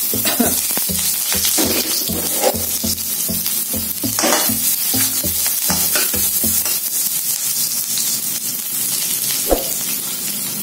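Sliced shallots and garlic sizzling in hot sesame oil in a wok, stirred and scraped with a metal spatula.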